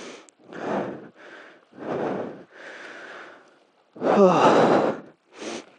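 A man's heavy, effortful breathing close to a helmet-mounted microphone: a run of short puffs, then a louder voiced sigh about four seconds in, from the exertion of dragging and holding down fallen branches.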